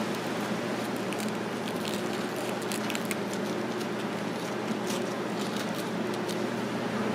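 Steady room hum with a low mechanical drone, and scattered light clicks and crackles from wooden chopsticks working crisp tempura on a plate, mostly in the first half and again near the end.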